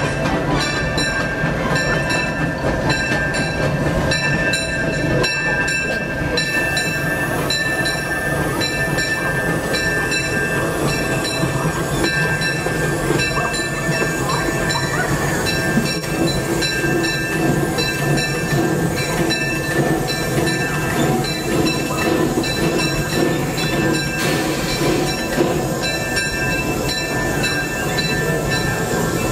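Disneyland Railroad narrow-gauge steam locomotive running, heard from inside its cab: a steady rumble with a regular light clatter and a steady high hiss.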